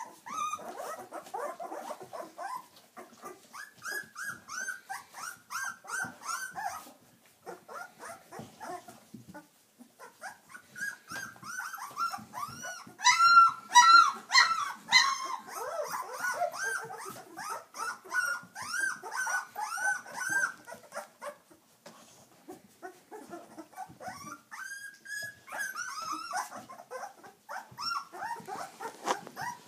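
A litter of young puppies whining and squeaking, a steady run of short, high, rising-and-falling yips overlapping one another, loudest about halfway through.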